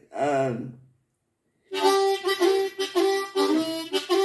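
Diatonic harmonica in C playing a blues phrase: held notes that step between a few pitches. It comes in about two seconds in, after a short pause.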